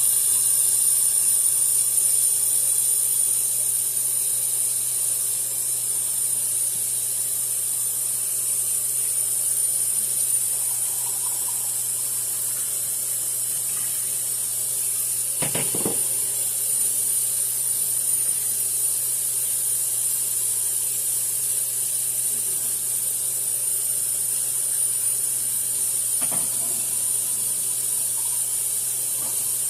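Pancakes sizzling in a hot pan, a steady high hiss while the batter cooks through before flipping. A single short knock about halfway through.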